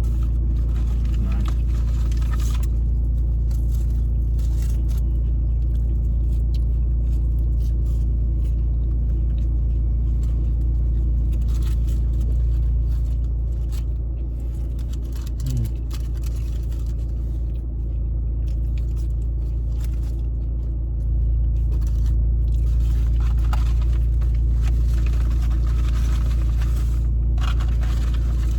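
Steady low mechanical rumble with a constant hum, its loudness easing for a few seconds about halfway through. Faint scattered clicks and rustles sit over it.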